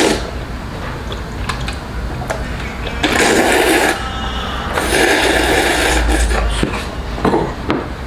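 Loud slurping of jjajangmyeon noodles, two long slurps about three and five seconds in, with a few light clicks between them.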